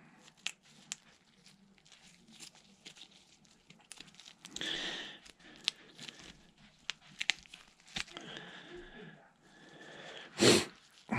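Small handling noises from working with a tube of gasket maker: scattered light clicks and crinkling rustles, with a louder rush of noise near the end.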